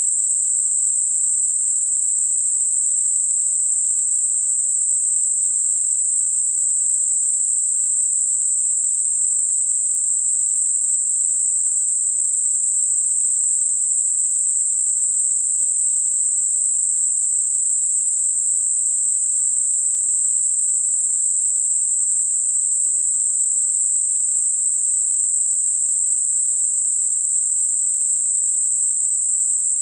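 Synthesized 8 kHz Gaussian narrow-band noise: a steady, high-pitched hiss with nothing in the low or middle range, made as a masker for high-frequency tinnitus.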